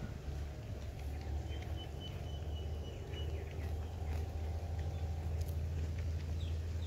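Outdoor background sound: a steady low hum that slowly grows louder, with faint scattered clicks and a thin high note held for about two seconds near the start.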